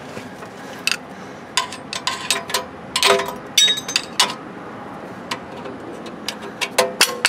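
Scattered metal clicks and knocks of a tool being handled and set against a steel axle housing, with a brief ringing metallic clink about three and a half seconds in.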